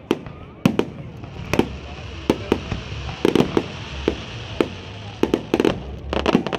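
Aerial fireworks shells bursting: a string of sharp bangs at irregular intervals, some coming in quick clusters about halfway through and near the end.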